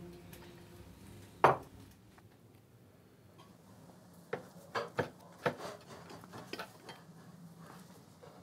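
Cutlery clinking against china plates at a meal table: one louder sharp clink about one and a half seconds in, then a handful of lighter, separate clinks and knocks in the second half.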